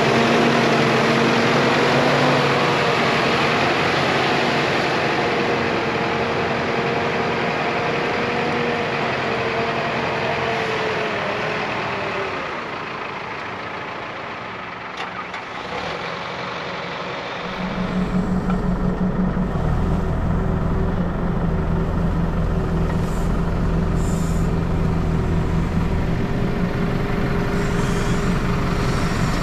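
Heavy diesel machine's engine running, with a steady whine over it. About two-thirds of the way through the sound changes abruptly to a deeper, pulsing engine rumble.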